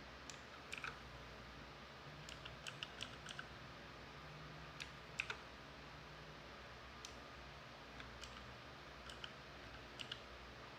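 Alfawise K1 mechanical keyboard's blue switches clicking under irregular keypresses, single presses and short runs of a few at a time, over a faint steady hiss.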